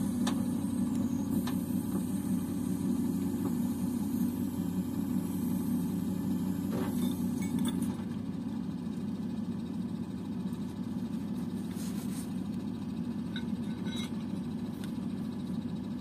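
Truck engine and hydraulics running a truck-mounted loader crane as it lowers a concrete sewer ring; a steady low drone that drops slightly about eight seconds in, with a few faint clicks.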